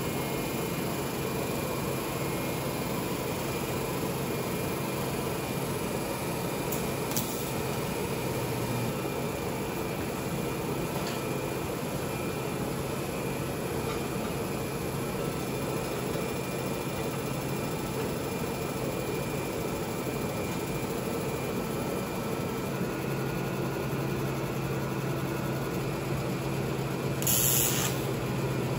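A steady machine hum at an even level, with a short hiss about a second and a half before the end.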